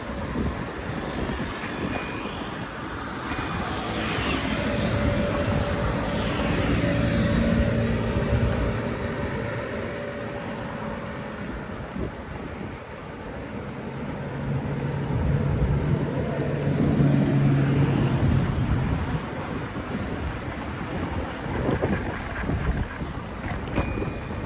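Street traffic over a steady rushing noise. A motor vehicle passes about four to nine seconds in, and another, with a low steady engine hum, about fourteen to nineteen seconds in.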